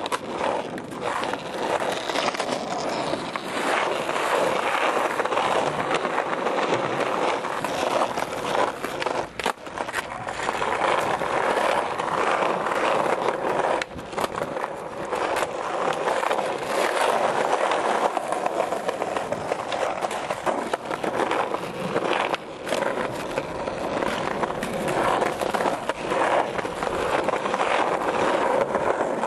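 Skateboard wheels rolling over concrete paving, with sharp clacks of the board popping and landing several times.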